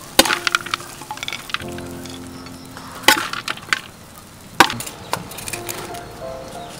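Metal spatula scraping and knocking against a wok and a plate as a duck stir-fry is tossed and served, a handful of sharp clacks, the loudest about four and a half seconds in, over soft background music.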